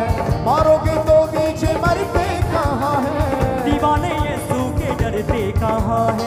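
Live worship band playing: electric guitars, bass and keyboard under a beat, with a melody line sliding between notes.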